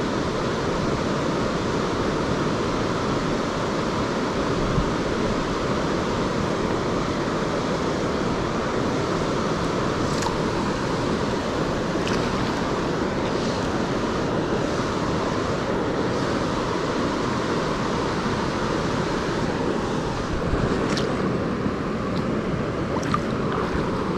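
Steady rush of river water flowing, with a few faint ticks in the second half.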